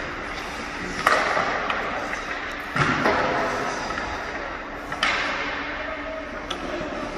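Hockey sticks, skates and puck on rink ice: three sharp strikes, about a second in, near three seconds and at five seconds, each trailing off in an echoing scrape. A faint steady hum runs underneath.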